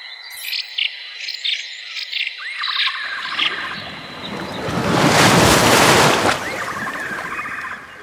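Small birds chirping in quick repeated notes over a steady high tone. About three seconds in, a loud rushing noise swells up, peaks, and fades, and the chirping carries on near the end.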